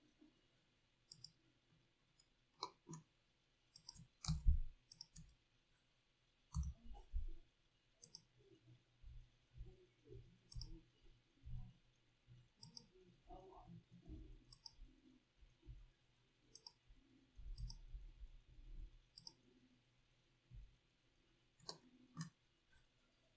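Faint, irregular computer mouse clicks, with soft low knocks now and then.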